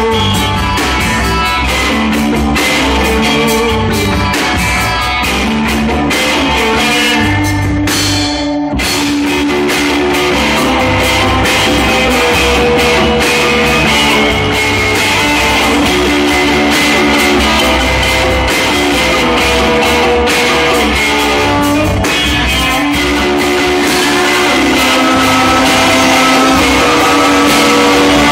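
Live rock band playing loud: electric guitars, bass guitar and drum kit, with a brief gap about eight seconds in.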